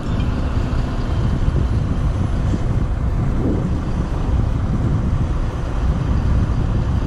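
Heavy diesel engines of a semi truck and a tractor running under load, a steady deep rumble, as they pull a loaded semi trailer back from a canal bank.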